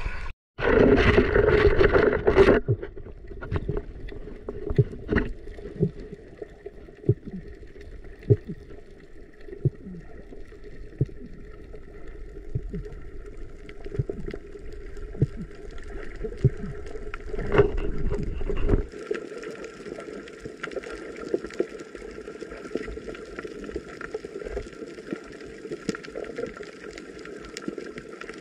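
Water sloshing and splashing at the surface for the first two seconds, then muffled underwater sound heard through an action camera's housing: a steady low hum with scattered sharp clicks and pops. A little past halfway the deep rumble drops out and a thinner, hissier hum carries on.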